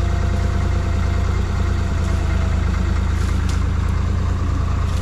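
Skid steer engine running steadily at a constant pitch, with a faint steady whine above the rumble.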